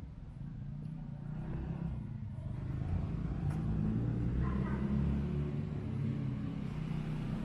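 A motor vehicle's engine rumbling on the street, growing louder as it draws near.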